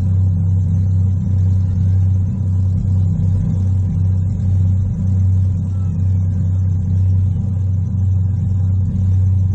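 Demolition derby car's engine idling with a steady low rumble, heard from inside the stripped-out cabin.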